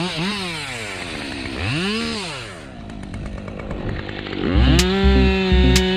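Two-stroke chainsaw revved in a few rising and falling blips. From about four and a half seconds in it is held at full throttle as the chain bites into a eucalyptus limb, running steady and loud.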